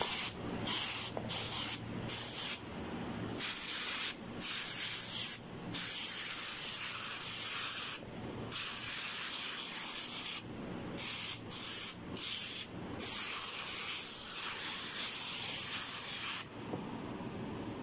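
Aerosol foaming cleaner hissing out of a spray can onto a computer keyboard in repeated bursts: quick short squirts at first, then longer sprays of a second or two each, stopping near the end.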